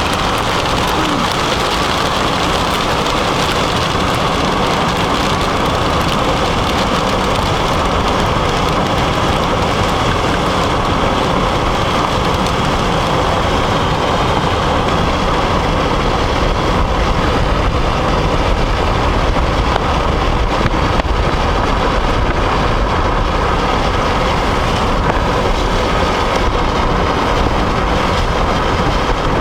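Steady road noise inside a moving car, with an even rushing hiss from the tyres and wind that holds at one level.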